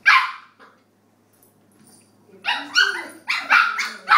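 Puppy barking: one sharp bark at the start, then, from about halfway in, a quick run of short barks at about three a second.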